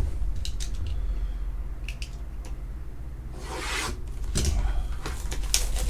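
A trading card box and its packs being opened by hand: scattered clicks and handling noises, and a short rustling tear of wrapper at about three and a half seconds in.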